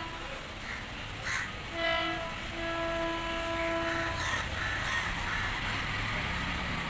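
WAP-7 electric locomotive's horn: a short toot about two seconds in, then a steady blast of about a second and a half, over the low rumble of the approaching train.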